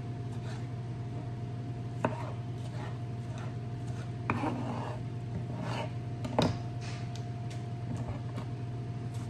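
Kitchen knife cutting tomatoes on a plastic cutting board: scattered soft knocks of the blade on the board, the three loudest about two seconds apart, over a steady low hum.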